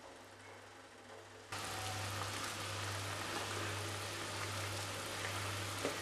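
Vermicelli boiling vigorously in a pot of water: a steady bubbling hiss that comes in suddenly about a second and a half in, over a low steady hum.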